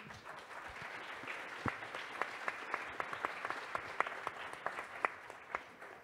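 Audience applauding, beginning at once and dying away near the end.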